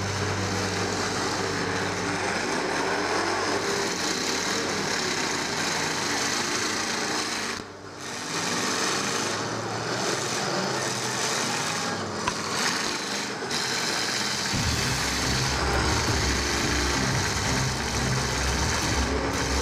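Demolition derby car engines running and revving. A deeper, louder engine note comes in about fifteen seconds in.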